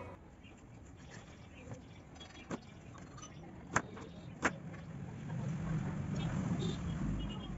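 Sharp snips and clicks of wire-stripping pliers cutting and stripping thin copper motor leads, the two loudest a little under a second apart. A low background rumble rises near the end.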